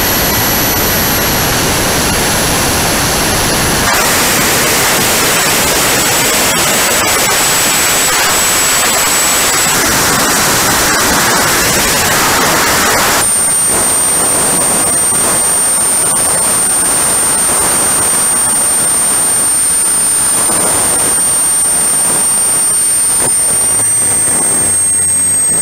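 Radio-controlled model jet's engine running at power, heard on board the aircraft: a steady high-pitched whine over loud rushing air. The sound changes abruptly about four seconds and again about thirteen seconds in.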